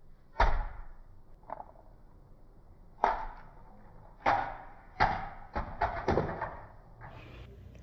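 A small plastic toy tumbling down carpeted stairs and bouncing across the floor: about seven separate knocks, irregularly spaced, with a cluster of quicker ones in the second half.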